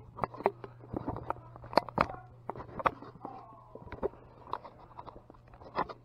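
Handling noise: irregular clicks, taps and rubs of fingers on the recording phone or camera as a hand covers its lens, over a steady low hum.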